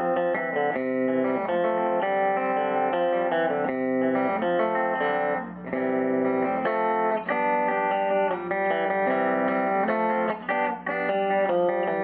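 Electric guitar strummed in chords through a 1951 Gibson BR-6 tube amplifier, with the volume around 6, where the amp is starting to break up into a light overdrive. The bridge pickup gives a bright tone, with a bit too many highs.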